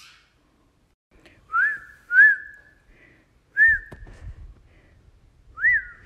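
A person whistling four short notes, each sliding up and then held briefly. There is a soft bump about halfway through.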